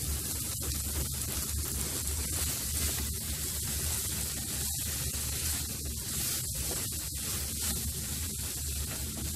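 Cauliflower florets and powdered masala frying in oil in a nonstick pan as they are stirred with a wooden spatula: a steady sizzling hiss under a low hum.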